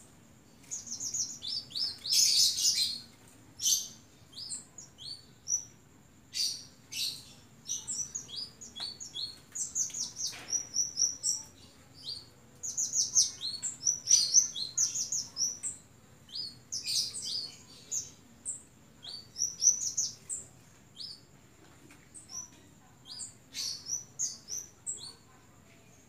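Caged kemade songbird chirping: quick, high, sharp notes and short twittering runs, in clusters with brief pauses between.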